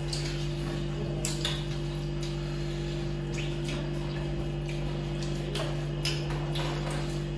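Eating sounds: scattered small clicks and smacks of people chewing and eating rice and curry by hand, over a steady low hum.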